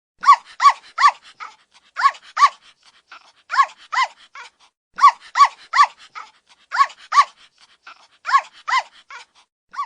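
A dog barking: short barks coming in quick groups of two or three, with a brief pause between groups.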